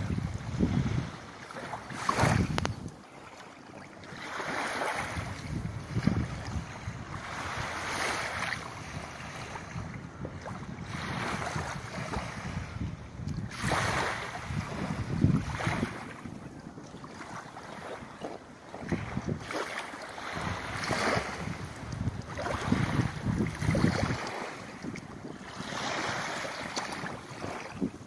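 Wind buffeting the microphone in gusts that swell and fade every second or two, over water lapping at the shore.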